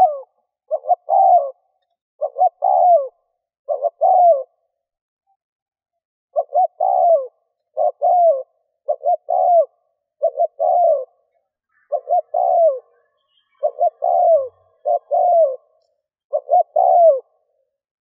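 Spotted dove cooing: about a dozen phrases in a row, each two quick short notes followed by a longer falling coo, with a pause of about two seconds after the third phrase.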